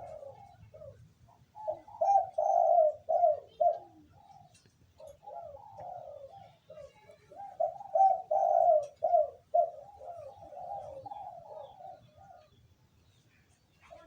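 Spotted dove (terkukur) cooing: several repeated phrases of low, rhythmic coos, each phrase a run of short notes lasting a couple of seconds, with brief pauses between phrases.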